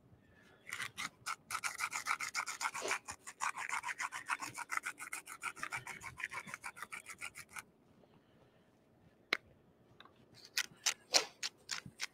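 Hand pepper mill being twisted to grind pepper: a rapid, even rasping crunch of about six strokes a second, in a long run that stops about three quarters of the way in, then starts again near the end.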